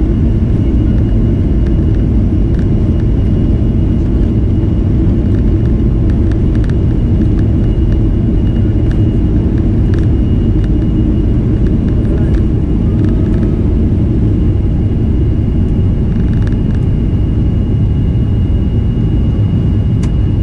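Boeing 737-300's CFM56-3 turbofans at takeoff thrust, heard from a cabin window seat over the wing: a loud, steady rumble with a thin steady whine on top and occasional light knocks, through the takeoff roll and lift-off.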